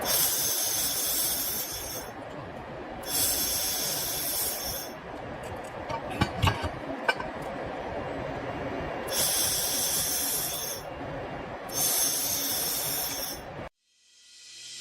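Handheld fiber laser welder at work, in four bursts of high hissing of about two seconds each over a steady background noise, with a few sharp clicks between the second and third bursts.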